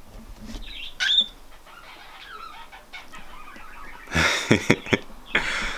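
Cockatiel gives one short, sharp chirp that sweeps upward about a second in. Later there is a louder burst of scuffing noise with clicks.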